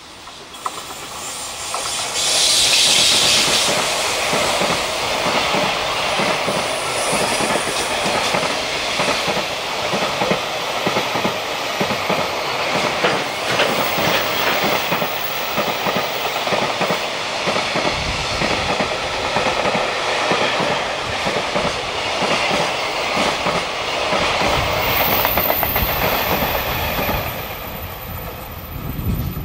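A JR Freight EF210 electric locomotive hauling a long container train passes close by. The sound swells quickly to its loudest about two seconds in, then goes into a steady clatter of wagon wheels clicking over the rail joints as the container wagons run past.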